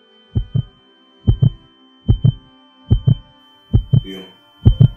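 Heartbeat sound effect: paired low lub-dub thumps, a little under one a second, over a thin steady high ringing tone and a faint hum.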